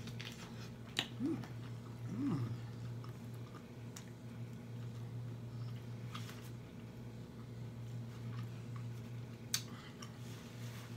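Close-miked chewing and lip smacking on lobster tail meat, with a few sharp clicks scattered through, over a steady low hum.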